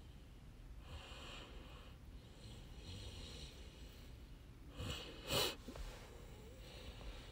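Faint breathing close to a microphone, soft breaths about every one to two seconds, with a louder, sharper breath about five seconds in.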